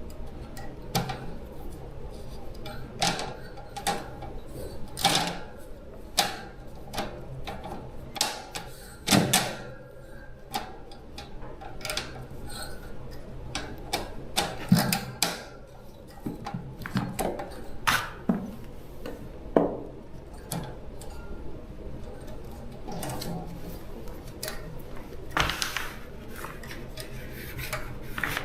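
Irregular clicks, taps and knocks of tools and small parts being handled while an electric fan is taken apart or repaired, with a faint steady hum underneath.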